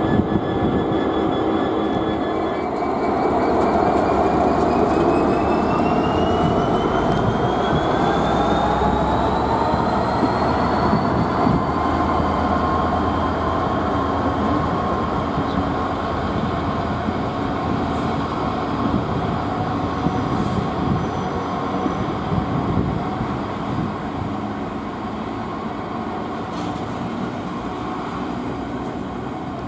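Train pulling away, its whine rising in pitch for about ten seconds and then holding steady as it runs on over a continuous rumble.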